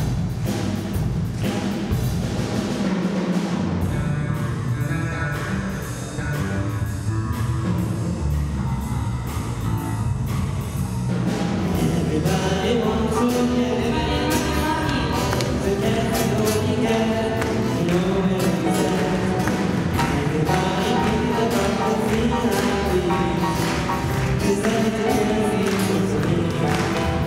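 A student orchestra of strings, winds and drum kit playing live over a steady beat. About twelve seconds in the music grows a little louder and singing voices join in.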